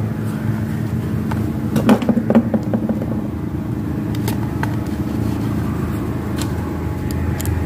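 Scattered small clicks and taps of a screwdriver and screws as a sewing machine's control circuit board is screwed into its housing, over a steady low rumbling hum.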